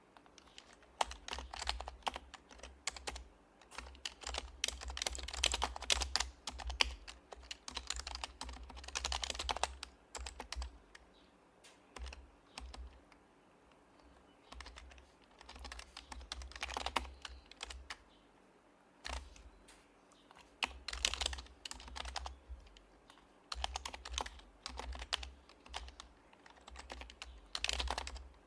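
Typing on an HHKB Professional Hybrid Type-S keyboard with silenced Topre switches: runs of rapid keystrokes with short pauses between them.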